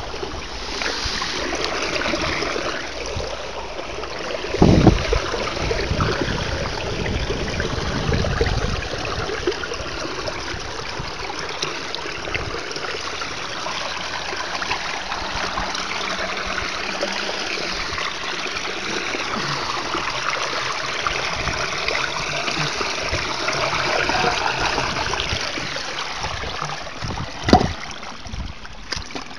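Floodwater pouring down through a storm drain grate with a steady rushing, splashing flow: the drain is running freely as the leaves clogging it are cleared. A low thump comes about five seconds in and a sharp knock near the end.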